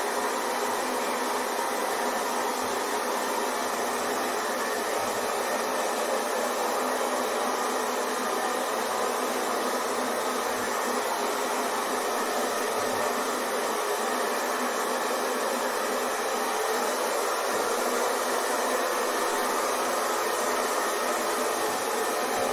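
Hair dryer running steadily: a continuous, even rush of blown air with faint steady motor tones in it.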